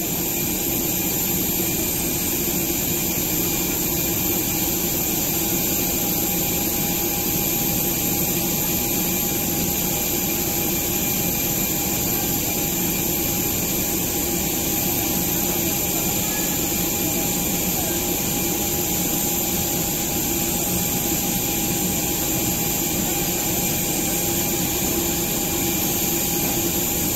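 Jet aircraft engine running: a steady rushing noise with an even, high whine on top.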